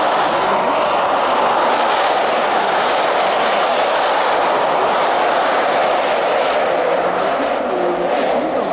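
Several ice-racing cars passing in a pack through a corner on snow and ice, giving a steady, loud vehicle noise.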